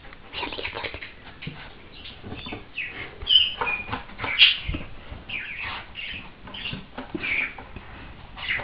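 Pet parrot squawking and chattering in a string of short calls, with two louder squawks near the middle.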